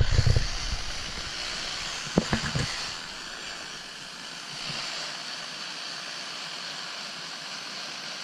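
Steady hiss of radio static from a weather radio receiver, opening with a brief low thump as the audio cuts in, with a couple of short crackles about two seconds in.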